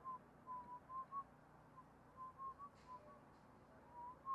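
A person whistling a wandering tune in short, separate notes, with a couple of faint ticks partway through.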